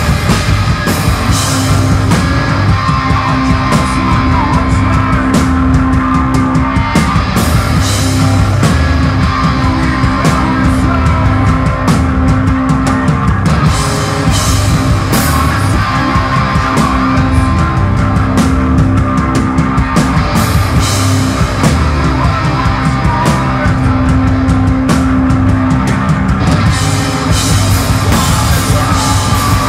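Live sludge/noise-rock band playing loud: heavy distorted guitar and bass in long held notes over drums with frequent cymbal crashes.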